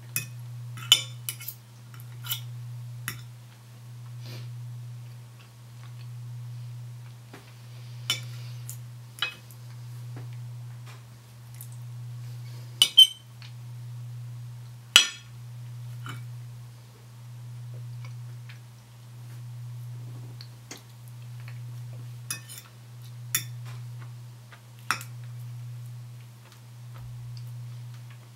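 Metal knife and fork clinking and scraping on a ceramic plate, about a dozen sharp clinks spread irregularly, the loudest a few seconds before the middle. Under them runs a steady low hum that swells and fades about every second and a half.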